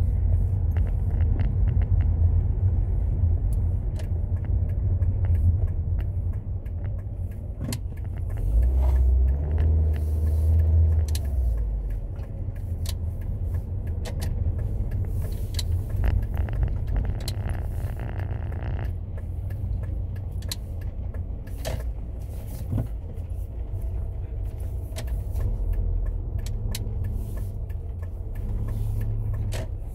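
Car cabin while driving: a steady low rumble of engine and road noise, swelling louder for a couple of seconds about nine seconds in, with scattered sharp ticks throughout.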